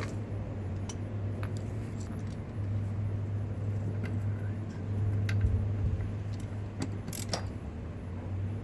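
Scattered small metallic clicks and clinks of hand tools working the sterndrive's shift cable fitting and bellows hose clamp, over a steady low hum.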